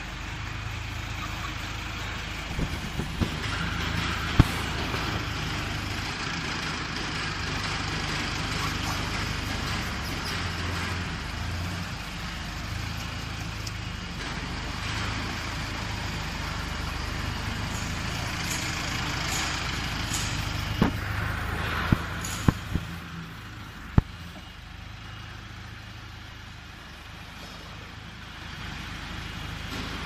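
Compact tracked skid steer loader's diesel engine running steadily as the machine drives, with a few sharp metallic knocks, most of them about two-thirds of the way through, after which the engine sound drops somewhat lower.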